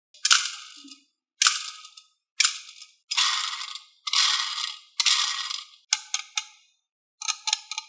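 Marbles clattering down a HABA wooden marble run: a sharp clatter about once a second, each fading out, then quicker bursts of clicks near the end.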